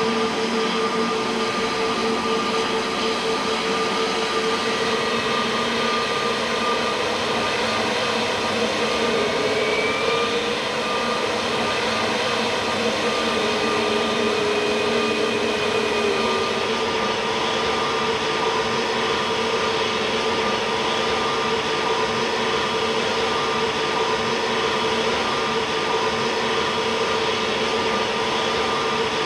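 Jet airliner engines running steadily: a constant whine over a rushing hiss, with one tone wavering briefly about a third of the way through.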